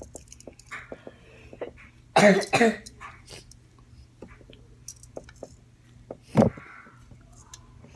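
A person coughing or clearing their throat, two loud hacks about two seconds in and one more short one later on, with faint small clicks and rustles of handling between them.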